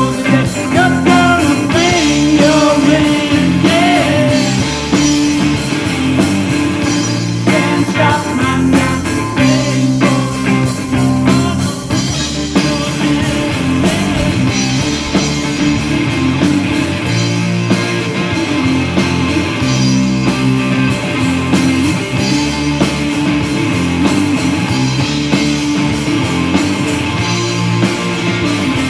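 Live three-piece rock band playing: electric guitar, bass guitar and drum kit together at a steady, loud level.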